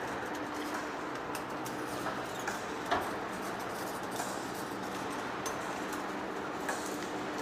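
Heavy-duty metal lathe running: a steady machine hum with scattered sharp clicks, the loudest about three seconds in.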